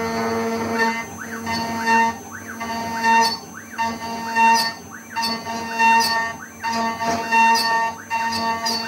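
6040Z CNC router's spindle whining steadily as its end mill cuts aluminium. The cut swells in loudness about once a second, each time with a short whine that rises and falls in pitch.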